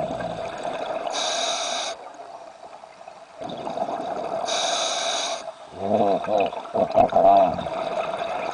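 Scuba diver breathing through a regulator underwater: a hissing inhalation about a second in and again about five seconds in, with a gurgling rush of exhaust bubbles between about six and seven and a half seconds. A steady hum runs underneath.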